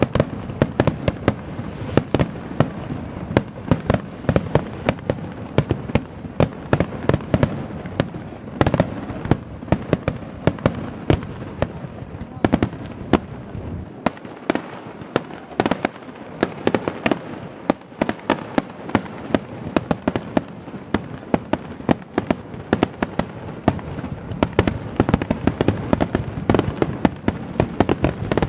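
Fireworks display: a dense, unbroken run of sharp bangs and crackles, several a second, over a low rumble that eases for a few seconds midway.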